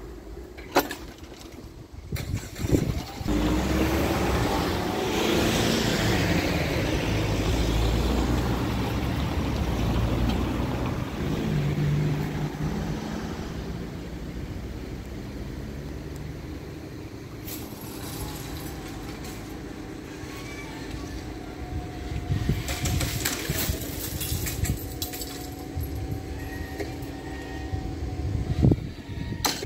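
A motor vehicle drives past over the level crossing, its rumble swelling a few seconds in and fading after about ten seconds. Later a faint steady hum runs while the crossing barrier lowers, ending with a knock near the end.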